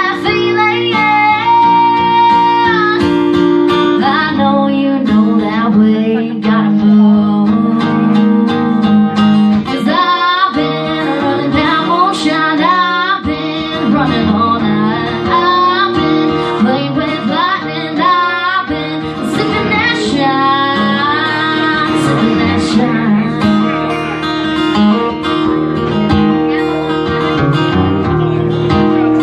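A woman singing live to acoustic guitar.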